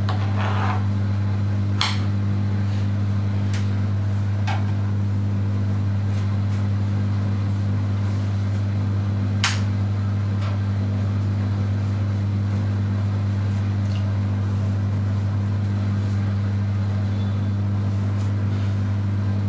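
A kitchen knife knocking on a plastic chopping board a few times, the loudest knock about halfway through, over a steady low electrical hum.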